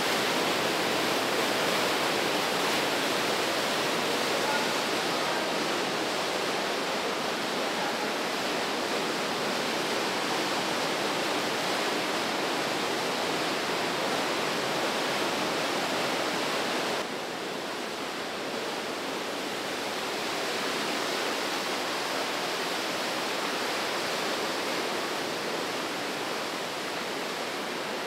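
The Breitach river rushing through a narrow rock gorge: a steady, even rush of water that steps down suddenly to a slightly quieter level about two-thirds of the way through.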